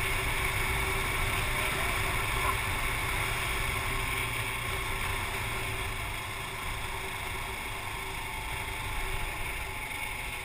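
Kawasaki KLR dual-sport motorcycle's single-cylinder engine running steadily at cruising speed, mixed with wind noise, as picked up by a helmet-mounted camera.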